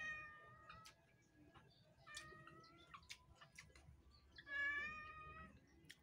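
A domestic cat meowing repeatedly: three drawn-out meows of about a second each, a couple of seconds apart.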